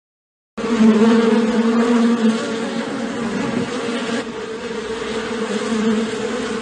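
Honeybee buzzing: a steady, loud drone with a low hum and its overtone, starting about half a second in.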